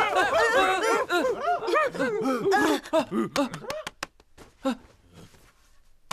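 Laughter in rapid, high-pitched bursts that dies away about three seconds in, followed by a few sharp clicks.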